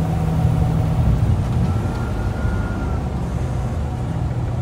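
Freightliner Cascadia semi truck's diesel engine and road noise droning steadily inside the cab while it cruises at about 42 mph on cruise control. A faint high whine sounds for about a second midway.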